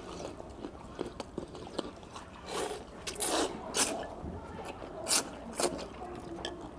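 Close-up eating sounds: mouthfuls of hele noodles being slurped and chewed, in several short noisy bursts with a few sharp clicks between them.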